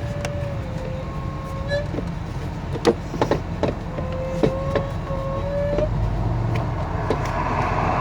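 A few sharp plastic clicks and knocks from the car's air filter housing and filter being handled, bunched around the middle. Under them runs a steady low rumble, with a wavering tone that comes and goes.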